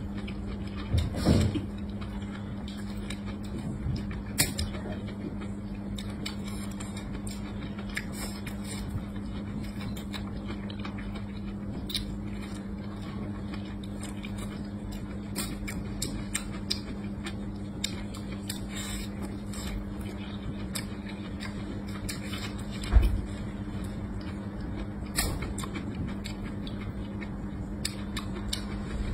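Close-up eating sounds: a person chewing and biting food taken with chopsticks, heard as scattered soft clicks and smacks over a steady low hum. There is a brief louder burst about a second in and a single low thump late on.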